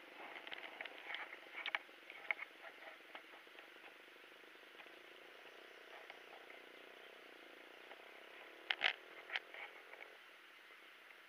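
Motorcycle riding over a rocky, puddled dirt road, with irregular clattering knocks and rattles from the bumps. The knocks come thickest in the first few seconds and loudest in a brief cluster about nine seconds in, over a steady background noise.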